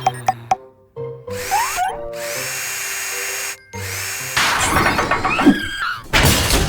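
Cartoon power-drill sound effects whirring in several runs with short breaks between them, over children's background music.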